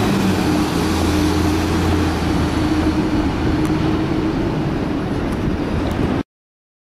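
Volvo B7TL double-decker bus engine running as the bus pulls away, with a loud suction noise from the engine over a steady low hum. The sound cuts off suddenly about six seconds in.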